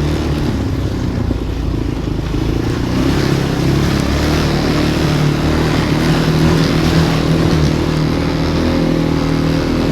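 Engine of a ridden off-road vehicle running steadily while under way, its pitch stepping up and down a little as the throttle changes.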